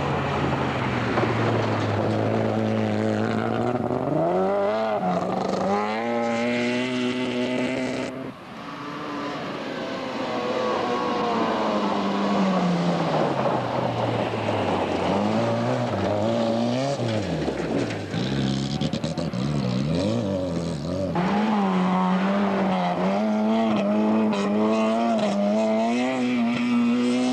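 Lada rally cars' four-cylinder engines revving hard through a gravel corner, the pitch climbing and dropping with throttle and gear changes. The sound switches abruptly twice, about eight seconds in and again about twenty-one seconds in, as one car gives way to the next.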